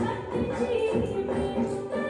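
Rajasthani folk-style song playing, with a steady percussion beat under held melodic tones.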